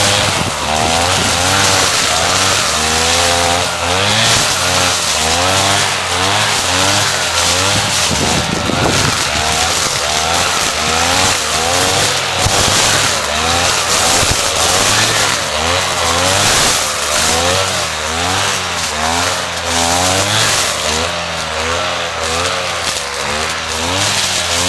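Small engine of a Maruyama 420 brush cutter running loudly, its speed rising and falling over and over as the throttle is worked up and down.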